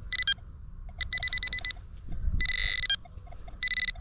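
Handheld metal-detecting pinpointer beeping as it is probed through loose soil in a dig hole: a few short beeps, a quick run of rapid pulses, then two longer steady tones, signalling metal close to its tip.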